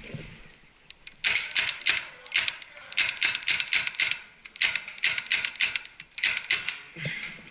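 Magazine-fed paintball marker fired in several quick semi-automatic bursts, sharp pops at about six a second, starting about a second in.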